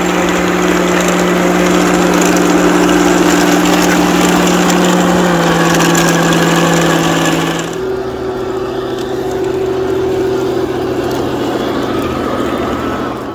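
Heng Long 1/16 Tiger 1 RC tank driving, its built-in engine sound effect giving a steady drone over mechanical running noise from the drivetrain and tracks. About two-thirds of the way through, the sound drops in level and shifts pitch.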